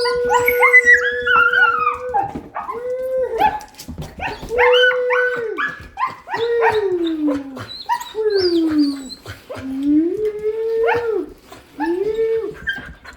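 Nova Scotia duck tolling retrievers howling together. One holds long howls that later turn into shorter calls sliding down in pitch, while another cries in higher, shorter yelps and whines over it.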